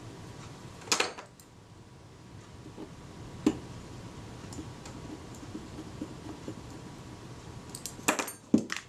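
Small metal clicks and taps of tweezers and a hinge pin being worked into the strut hinge of a Kodak Retina IIIc folding camera. There is a short cluster of clicks about a second in, one sharp click about halfway through, and a quick flurry of clicks near the end.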